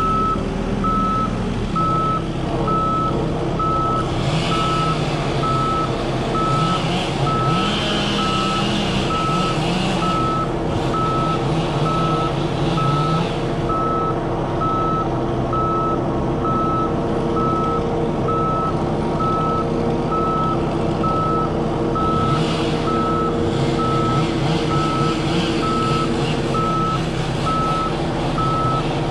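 A vehicle's reversing alarm beeping evenly and without a break, over a running engine.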